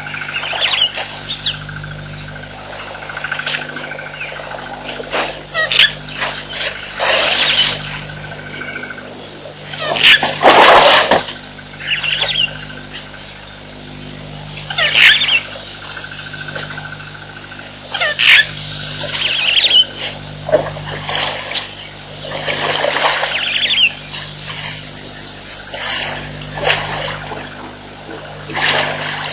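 Wild birds calling through the whole stretch: many short high chirps, with several louder, harsher calls every few seconds.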